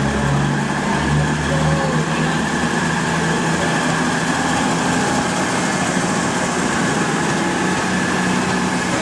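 Class 221 Voyager diesel multiple unit departing, its underfloor diesel engines running with a steady drone; the low engine note is strongest in the first two seconds.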